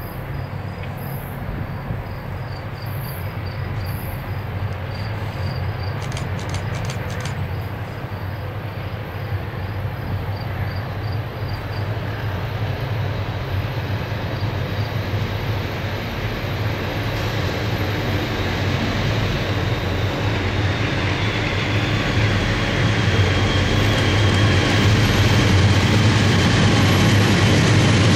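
Providence and Worcester freight train approaching, its diesel locomotives running with a steady low hum that grows louder until the engines pass close by near the end. Wheel and rail noise builds in the second half, and crickets chirp steadily through the first half.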